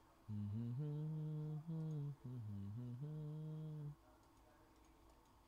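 A man humming a slow tune in a low voice: about four held notes, one dipping in pitch, stopping about four seconds in.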